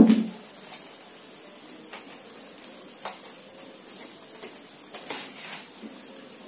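A sharp thump right at the start, then a few faint taps and a short rustle about five seconds in, as a glued paper tiger cutout is pressed and adjusted by hand against a paper-covered frame.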